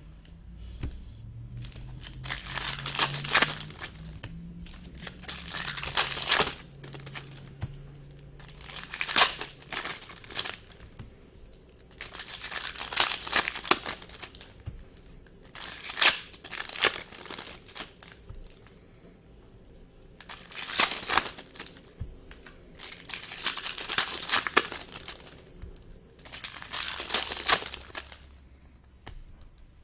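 Foil trading-card pack wrappers crinkling and tearing as packs are opened by hand. The rustling comes in about eight bursts a few seconds apart.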